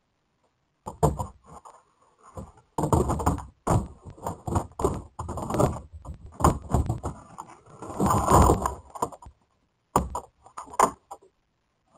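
A bear rummaging at plastic wheeled garbage carts: an irregular run of knocks, scrapes and rattles of the plastic bins, the loudest clatter about eight seconds in.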